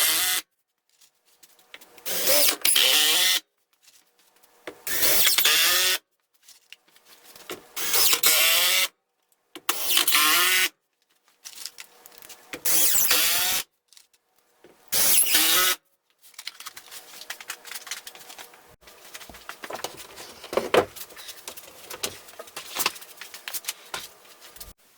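A handheld power tool run in short bursts of about a second, six times at roughly two-and-a-half-second intervals, its pitch shifting within each burst. From about sixteen seconds in, quieter irregular knocking and clattering of handling.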